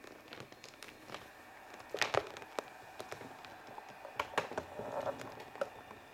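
Scattered light clicks and taps of fingers handling a clear model-train display case. Two sharper clicks come about two seconds in, and a few more around four seconds in.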